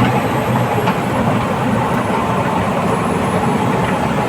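Komatsu D85ESS crawler bulldozer running: a loud, steady diesel engine with mechanical clatter.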